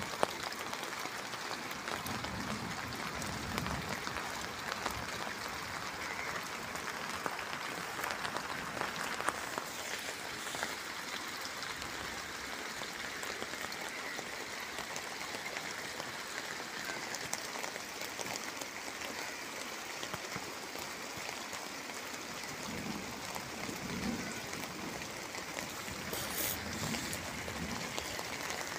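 Heavy rain falling steadily on a tomato field, an even hiss of rain with no let-up.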